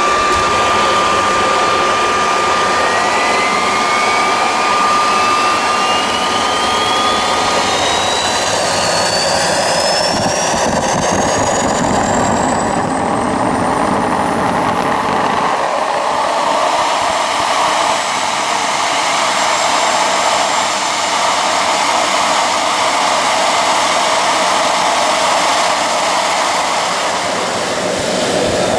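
Homemade turbocharger-based turbojet engine running loud and steady, its turbine whine rising smoothly in pitch over about fifteen seconds as it spools up, then holding high.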